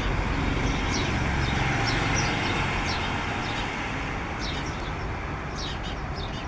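Small birds chirping in short, high calls over a steady rumble of road traffic; the chirps come thicker near the end.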